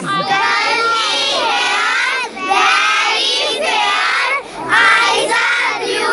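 A group of young girls singing together in unison, their many voices overlapping, in phrases of about two seconds with short breaks between them.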